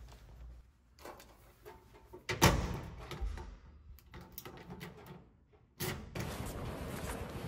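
A door shutting with a loud thud about two and a half seconds in, among smaller knocks and rustles. From about six seconds a steady hiss of background noise sets in suddenly.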